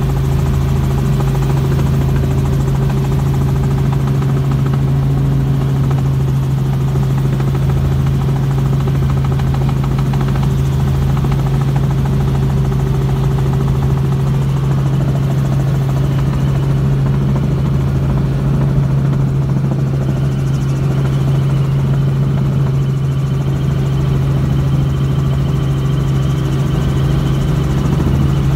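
Helicopter in flight heard from inside the cabin: a loud, steady drone with a strong low hum that holds unchanged throughout.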